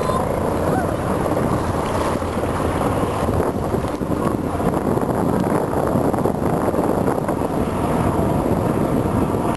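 A formation of helicopters passing overhead: a steady rotor-and-engine drone mixed with wind noise on the microphone.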